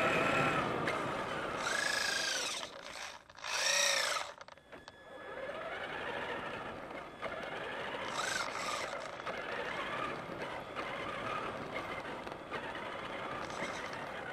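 Electric drive motor of a Traxxas Summit RC truck whining as the throttle is worked, its pitch rising and falling twice in the first four seconds with short cut-outs between. It then runs on at a steadier pitch over a rough rolling noise from the tyres on gravel.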